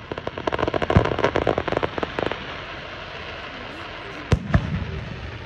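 Fireworks going off: a rapid run of crackling pops for about two seconds with a deep boom about a second in, then two sharp bangs near the end.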